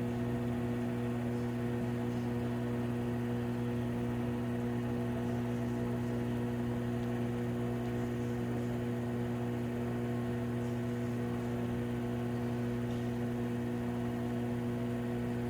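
Steady electric motor hum of an Allied High Tech MultiPrep grinder/polisher running with its platen turning and sample head oscillating, even and unchanging.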